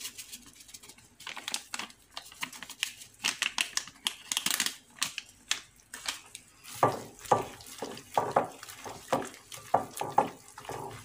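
Ground coriander shaken from a spice packet over raw squid, a run of light rustles and taps. About seven seconds in, a hand starts kneading the wet squid rings in a glass bowl, a series of wet squelches.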